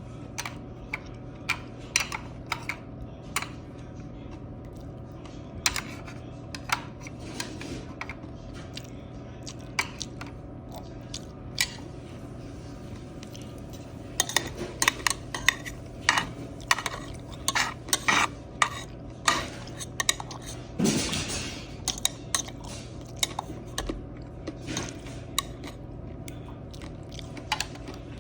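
Eating utensils clicking and scraping against a takeout lunchbox container: scattered taps, then a busy run of clicks about halfway through and a short scrape. A steady low hum runs underneath.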